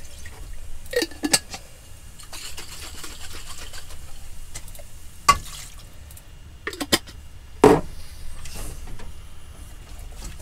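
Pots, pans and utensils knocking on a hob, a few sharp clatters with the loudest about three quarters through, and a wooden spoon stirring curry in a saucepan.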